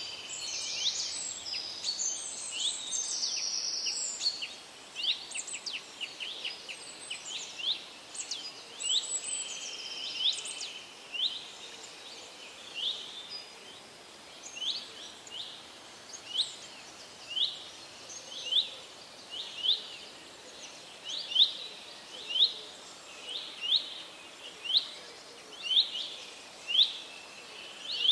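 Small songbirds chirping: a busy mix of chirps and short trills for about the first ten seconds, then one bird repeating a single short, rising note about once a second, growing louder toward the end.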